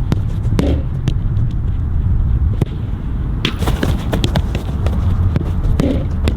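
Soccer ball being dribbled, with a run of irregular sharp touches and footsteps over a steady low rumble of wind on the microphone.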